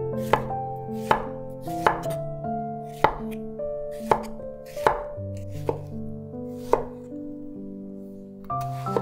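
Chef's knife slicing through tomatoes into a wooden cutting board: about eight sharp knocks, roughly one a second, each as the blade goes through and hits the wood. Background music plays under them.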